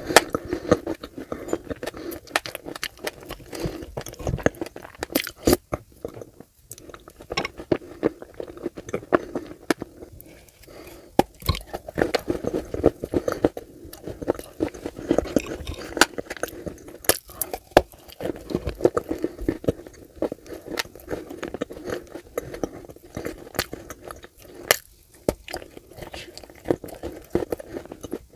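Close-miked chewing of Turkestan clay and wet clay paste: irregular sharp crunches and clicks as the dry clay is bitten, over steady wet mouth noise.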